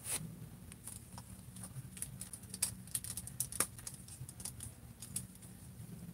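Faint, scattered light clicks and taps of plastic action figures being handled, the sharpest click right at the start as a posed figure is let go.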